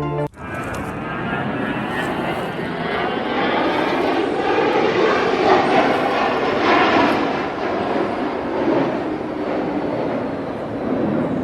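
Airplane engine noise that swells to its loudest about halfway through and then eases off, like a plane passing overhead.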